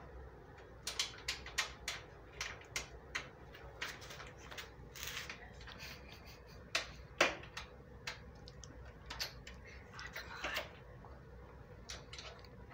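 Irregular light clicks and taps of the vise's mounting hardware being handled, as nuts are started by hand onto the bolts.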